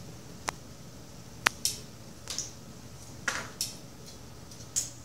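Metal kitchen tongs clicking and tapping against a steel pot of boiling water, several short sharp clicks at uneven intervals.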